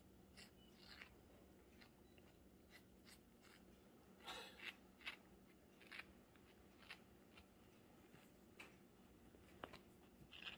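Near silence with faint, scattered scratches and rustles as two cats handle a fabric pillow toy.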